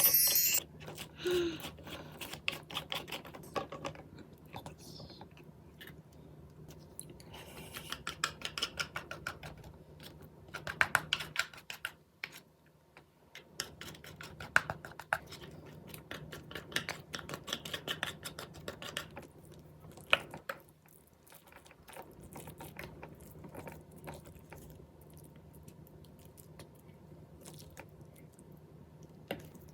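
Close-up eating sounds of soy-sauce marinated crab (ganjang gejang) with rice: wet chewing and crackly clicking in short irregular bursts, a few louder clicks standing out.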